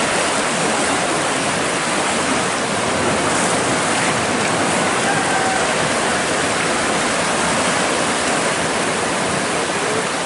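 Fast, turbulent river water rushing steadily along a stone-lined channel.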